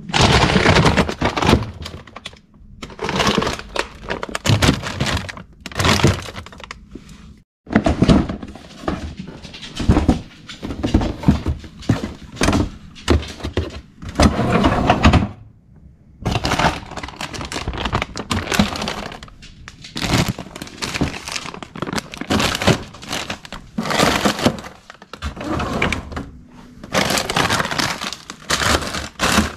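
Frozen food packages being packed into a freezer's plastic drawers: plastic bags crinkling and boxes and bags knocking and thudding against the drawer, in irregular bursts with short pauses.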